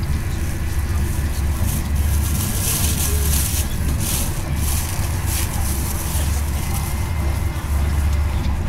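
Passenger train running, a steady low rumble with rattle and hiss of the carriage on the rails, with louder rushes of hiss about three and four seconds in.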